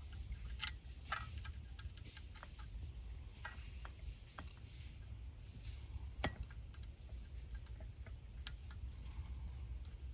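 Scattered small clicks and taps of fingers handling the antenna cable, plastic standoffs and board inside a car radio unit's metal housing, the sharpest about six seconds in, over a faint low hum.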